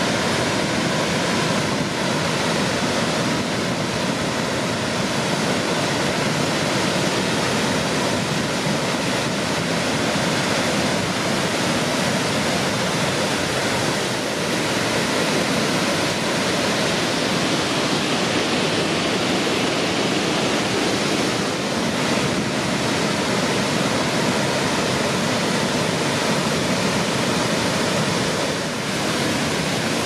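Cave Falls, a wide, low waterfall on the Fall River, rushing steadily: an even, unbroken wash of falling water.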